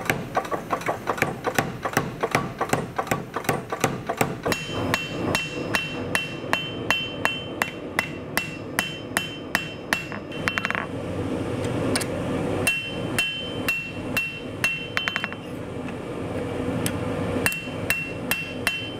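Air power hammer pounding hot steel in rapid, evenly spaced strokes. A few seconds in, it gives way to a hand hammer striking a knife blade on an anvil in a steady rhythm, the blows ringing with a high anvil tone in stretches.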